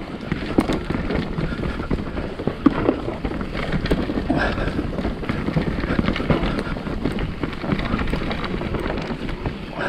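Mountain bike riding fast down a rough dirt trail: steady tyre noise over dirt and rocks, with the bike rattling and many small knocks throughout.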